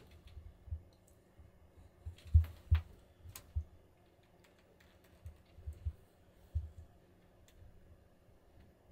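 Scattered soft knocks and clicks from people shifting and handling a compound bow and gear inside a hunting ground blind, the loudest two dull thumps about two and a half seconds in.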